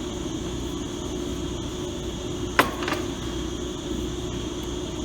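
Steady hum of a running machine, with one sharp metal clack about two and a half seconds in and a fainter one just after, as a steel die set is handled and seated in the press.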